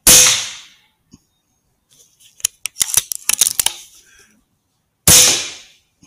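Two shots from an Air Arms S510 Superlite .22 pre-charged air rifle, about five seconds apart, each a sharp crack that dies away over most of a second. A quick cluster of sharp clicks comes between them.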